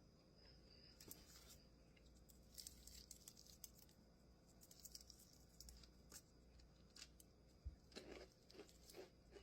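Faint, scattered crackles and crunches from eating heavily breaded fried chicken wings, with a denser run of them near the end.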